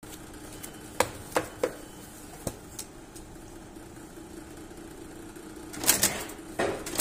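A wire stitching machine hums steadily while it gives out sharp clacks, three close together about a second in and two more soon after. A louder cluster of clatter and paper handling follows near the end.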